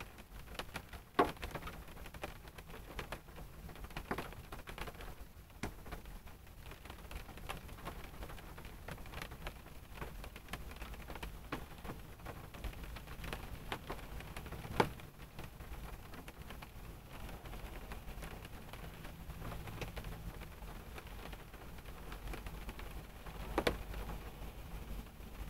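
Rain falling on a car, heard from inside the cabin: irregular drops tapping on the body and glass over a steady low hiss. Three single drops land louder than the rest, one about a second in, one just past halfway and one near the end.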